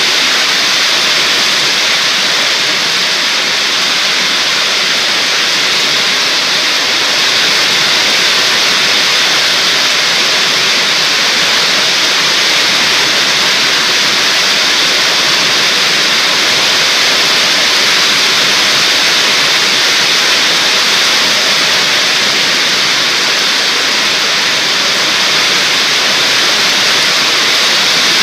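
Heavy storm rain pouring down, a steady dense hiss that does not let up.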